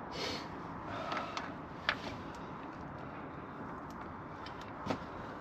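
A few light clicks and knocks over steady background noise as a plastic bumper end cap is pushed into place on the van.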